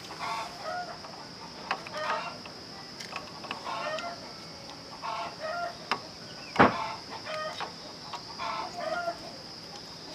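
Chickens clucking in short repeated calls every second or two, over a steady high-pitched drone. A single sharp click, the loudest sound, comes about two-thirds of the way through.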